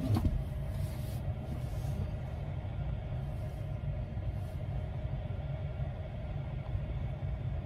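Steady low rumble with a faint even hum inside a parked car's cabin.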